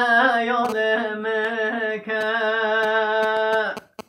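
Folk singing in Kurdish: a solo voice holding long, slightly wavering notes, with a short break about two seconds in, then one long held note that cuts off suddenly near the end.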